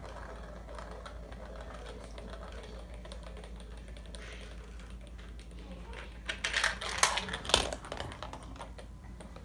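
A marble rolling through a marble run built from plastic magnetic tiles, rattling along the tracks, with a burst of clattering clicks about six to eight seconds in.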